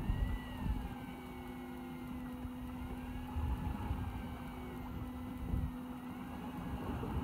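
A steady mechanical hum from the fishing boat's idling engine, with a higher whine that slowly wavers up and down in pitch. Wind gusts across the microphone.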